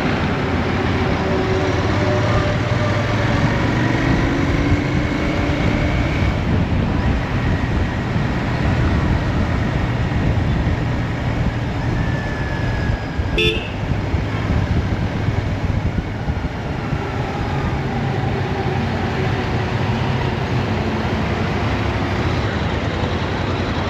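Royal Enfield Interceptor 650's parallel-twin engine running through its stock exhaust under way, its note rising and falling with the throttle. Traffic horns toot around it, with one short sharp toot about halfway through.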